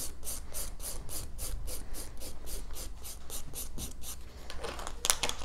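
Hand nail file rasping back and forth over a gel-coated fingernail, about four strokes a second, filing off old gel polish down to the gel base. The strokes fade out about four seconds in, and two sharp clicks follow near the end.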